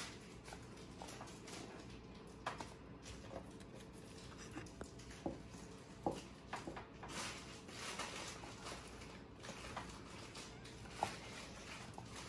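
Faint tabletop handling of paper craft pieces and a glue stick: scattered soft taps and rustles as paper cut-outs are pressed onto a paper plate.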